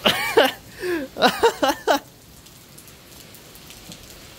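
A person's excited wordless cries for about two seconds, then a steady faint hiss of falling rain.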